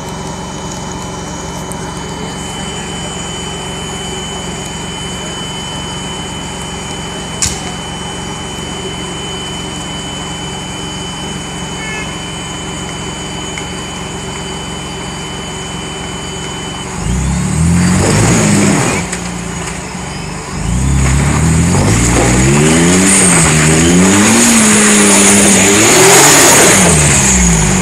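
Jeep Wrangler engine running steadily at low revs, then revved hard again and again from a little past halfway as the Jeep climbs muddy rock ledges, its pitch rising and falling, loudest near the end.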